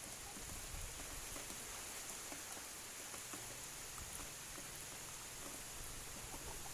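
Steady rain falling in a windy storm: an even, fairly quiet hiss with scattered faint ticks of drops and a low, uneven rumble of wind.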